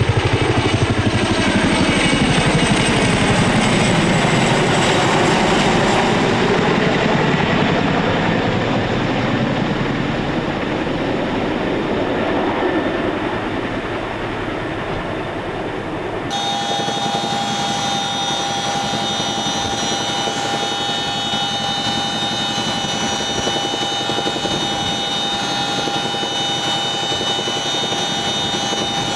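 Boeing CH-47 Chinook tandem-rotor helicopter going past, its roar sweeping in pitch and slowly fading. About sixteen seconds in it cuts abruptly to a steady, high whine of the turbines with several held tones.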